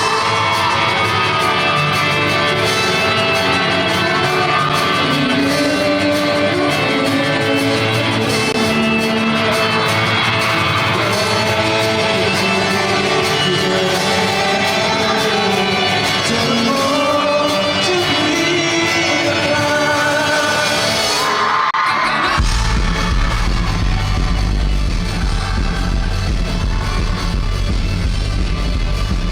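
A rock band playing live in a large hall, with a singer's voice over guitars and drums. About twenty-two seconds in, the singing stops and the drums and bass come in much heavier for an instrumental section.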